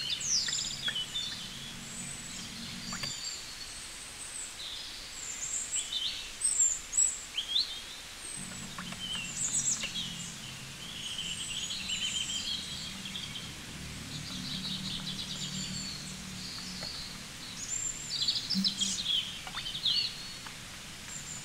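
Many small birds chirping and twittering in short calls and trills over a faint outdoor ambience. A low hum runs underneath, dropping out for a few seconds early on and returning.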